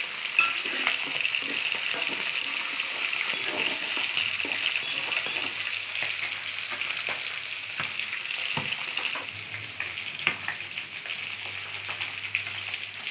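Potatoes, onion and a fish head frying in oil in a metal wok, a steady sizzle, with scattered clicks and knocks from a metal spatula against the pan.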